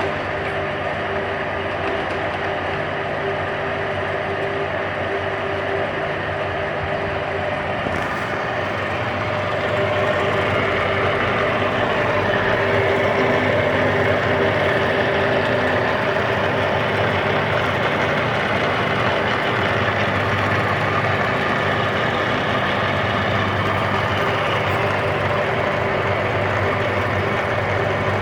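Summit 19" x 84" heavy-duty engine lathe running under its 7.5 HP motor, a steady mechanical hum with a few steady tones. It gets louder about ten seconds in and stays at that level.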